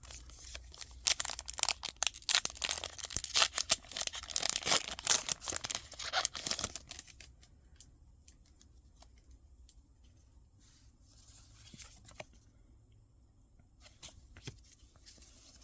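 A Pokémon card booster pack's foil wrapper being torn open and crinkled, a dense crackling for about six seconds. After that there are only faint rustles and a few small clicks.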